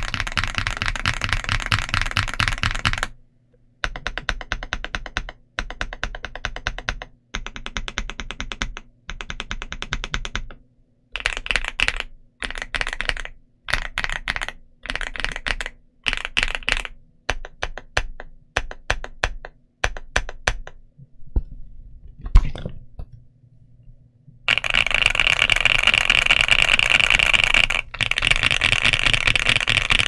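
Typing on an Ajazz AC100 aluminum mechanical keyboard with double-shot PBT Cherry-profile keycaps. There is fast continuous typing at the start and again from about four-fifths of the way through. In between come short runs of keystrokes and separate bursts of key presses with brief pauses, and one sharper, louder click about three-quarters through.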